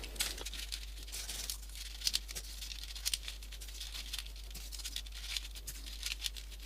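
Folded paper 3D origami pieces being slotted into the model and pushed outward. Faint paper rustling with scattered small clicks.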